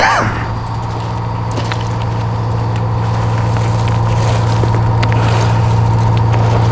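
A vehicle engine idling, most likely a fire engine's, a steady low drone that grows slightly louder. It opens with a brief sharp click and has faint scattered clicks of coal being handled.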